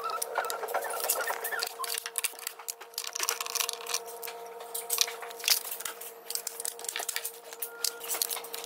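Repeated clicks, snaps and small clatters of plastic wiring-harness connectors and clips being worked loose with pliers from an EV battery pack's modules. A faint steady hum runs underneath.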